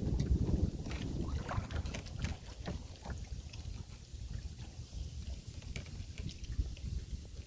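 Wind rumbling on the microphone in a small canoe on open water, strongest in the first second, with scattered light clicks and knocks.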